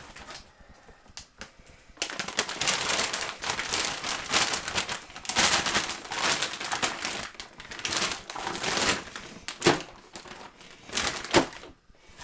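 Plastic bags of frozen chicken fillets crinkling and rustling as they are handled, an irregular run of crackles from about two seconds in until shortly before the end.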